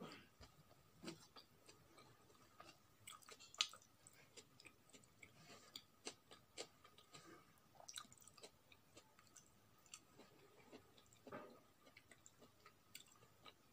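A person chewing food with faint, irregular wet mouth clicks and smacks, the sharpest click about three and a half seconds in.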